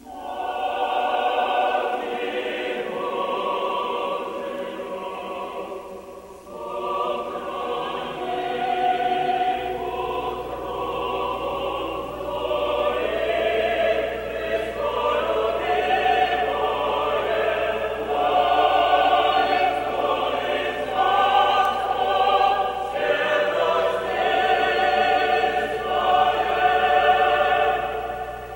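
Operatic choral music: voices singing long notes with vibrato, starting suddenly and fading out near the end.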